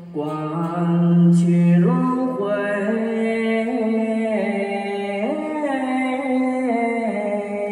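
Live music: a slow, droning, chant-like melody held on long, steady notes. It slides up to a new note about two seconds in and again about five seconds in.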